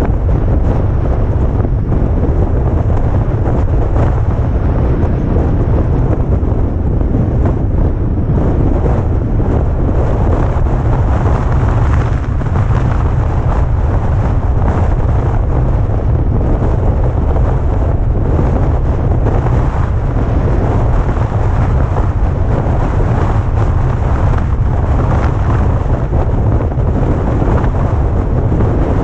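Heavy wind buffeting the camera microphone on a moving vehicle, a loud, steady low rumble that covers the vehicle's own sound.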